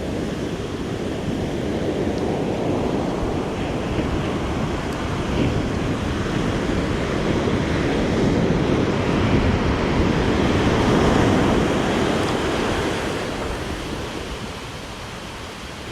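Ocean surf washing onto the beach, with wind on the microphone. The wash swells to its loudest about ten seconds in, then eases off.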